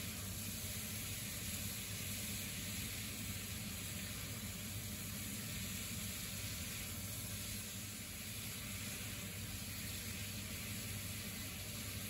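Chunks of chicken and onion sizzling steadily in a hot frying pan, over a low hum.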